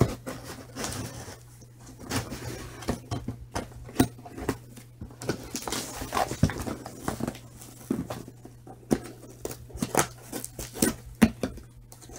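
Cardboard shipping box being opened by hand: flaps pulled and scraped, cardboard rustling, with many irregular knocks and thumps as the box is handled.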